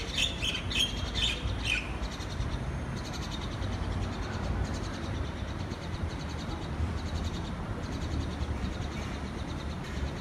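Birds chirping: a quick run of short, sharp calls in the first two seconds, then fainter, rapid chatter, over a steady low rumble of city traffic.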